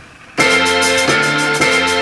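Electric piano chords start suddenly about half a second in, changing chord about every half second: a sample being played back while a hip-hop beat is built.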